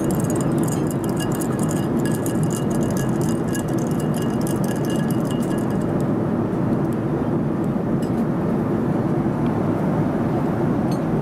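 Ice cubes clinking against a glass tumbler as a drink is stirred with a plastic swizzle stick, over the steady cabin hum of a Boeing 787-9 airliner in flight. The rapid clinking stops about six seconds in, leaving the hum with a few stray clinks.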